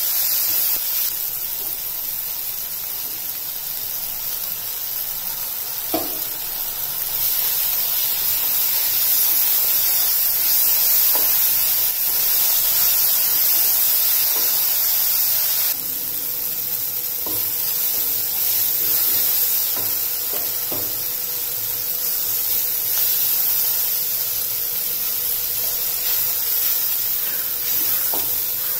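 Onions, tomatoes and green chillies sizzling as they fry in a nonstick pan, stirred with a wooden spatula, with a steady high hiss and occasional taps of the spatula against the pan.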